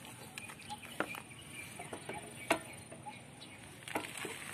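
A few light, scattered clicks and knocks of a coilover shock absorber being handled and offered up to a scooter's rear mounting, the sharpest about halfway through.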